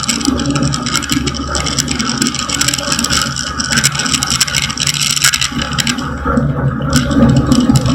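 Light aircraft engine running steadily, with rattling and scraping noise over it, getting a little louder near the end.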